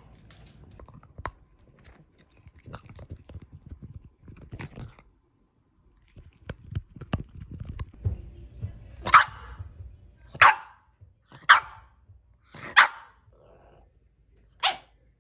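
French bulldog barking: five short, sharp barks about a second apart in the second half, after quieter scuffs and clicks.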